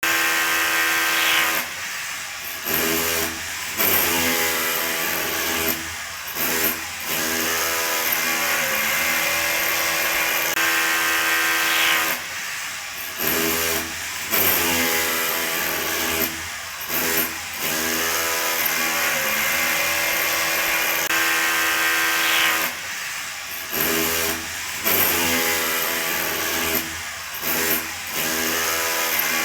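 Drill running with a steady, pitched whine that cuts out briefly several times, its pitch dipping and climbing back each time it slows and speeds up again. The same pattern of starts and stops repeats about every ten seconds.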